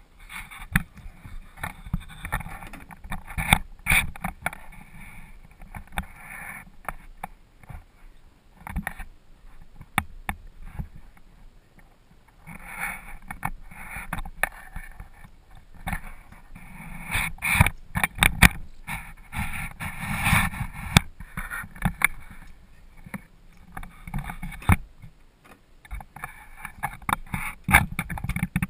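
Aluminum jon boat on the water: a rushing noise that swells and fades, with many irregular knocks and clicks against the metal hull as the angler moves about and handles a fish and gear.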